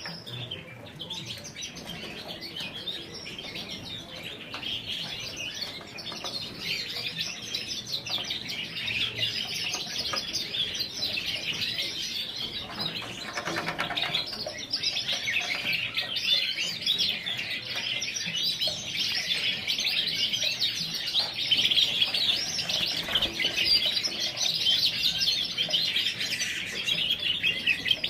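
Many Yorkshire canaries chirping and twittering together in a dense, continuous chorus that grows gradually louder.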